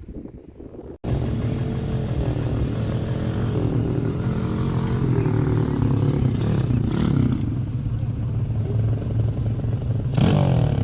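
Off-road vehicle engine running close by, cutting in abruptly about a second in after faint wind noise. Its pitch wavers with the throttle, and it revs up near the end.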